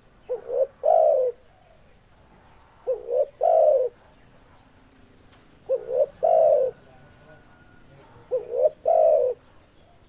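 Spotted dove calling four times, about every two and a half seconds; each call is a quick two-part note followed by a longer coo.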